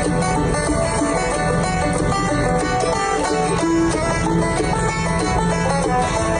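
Bluegrass music with a quick, busy banjo picking over guitar and a steady beat.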